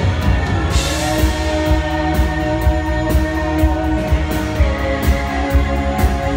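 Rock music: a steady drum beat under long, held guitar chords.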